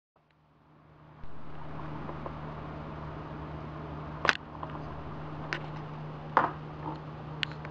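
A steady low hum, with four or five sharp knocks and clinks spread through it, the sort glasses and bottles make on a bar top.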